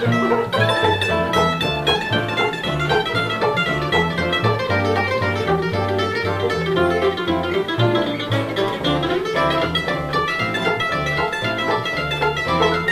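Acoustic bluegrass band playing an instrumental tune: quick picked mandolin runs over strummed acoustic guitar and an upright bass walking in a steady beat.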